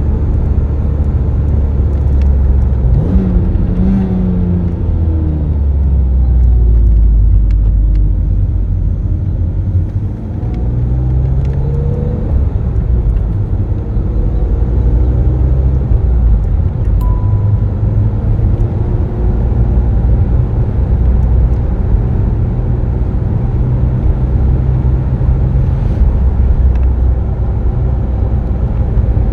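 BMW Z3 M Roadster's 3.2-litre naturally aspirated inline-six heard from the driver's seat while driving. Engine pitch rises and falls with throttle and gear changes, with a brief lift-off about ten seconds in, then holds fairly steady.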